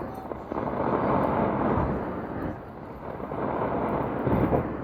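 Fireworks going off: a rolling rumble of booms that swells and fades, with a heavier bang near the end.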